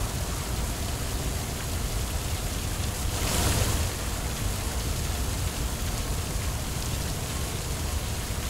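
Water jet from a cartoon fire truck's water cannon: a steady rushing hiss, swelling briefly about three seconds in.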